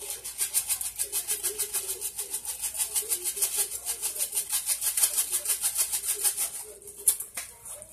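A spice jar of dried seasoning shaken quickly over ground beef in a cast-iron skillet: an even rattle of about six shakes a second that stops shortly before the end.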